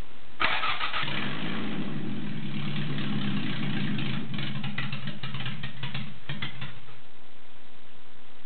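Toyota Blacktop BEAMS 3S-GE four-cylinder engine, freshly swapped into a Celica, being test-fired: it catches about half a second in and runs for about six seconds with sharp crackles over it, then stops about seven seconds in.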